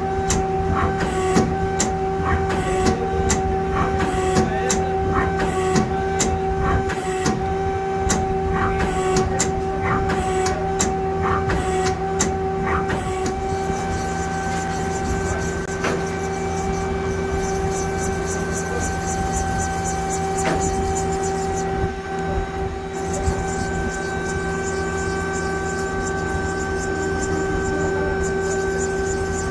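Mazak Quick Turn Nexus 250-II CNC lathe running, a steady mechanical hum with a whine over it, as its tool turret moves. Sharp clicks come about once or twice a second for the first dozen seconds. A higher steady tone joins about halfway through.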